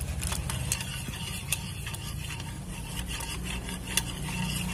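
Wire whisk beating thin gram-flour and yogurt batter in a ceramic bowl: a steady wet swishing with scattered sharp clicks as the wires strike the bowl.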